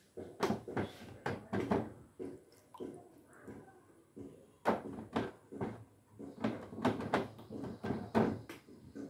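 Repeated wet slaps and knocks, a couple a second with a lull in the middle, as soaked fish swim bladders are lifted from a basin of water and laid down on a sheet-metal table top.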